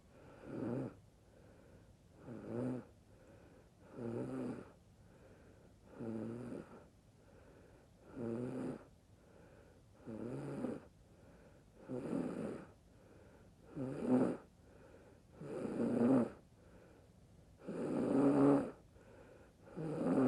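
A sleeping woman snoring: eleven rough, pitched snores, one about every two seconds, growing somewhat louder toward the end.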